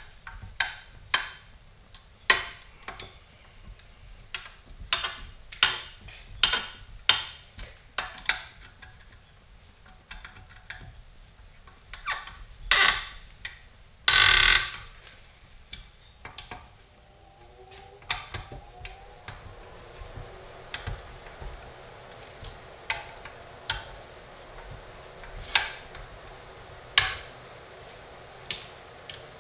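Irregular metal clicks and taps of a hand screwdriver driving the screws that draw a chainsaw's split crankcase halves together around the new crankshaft bearings, with a louder rattling rasp about halfway through.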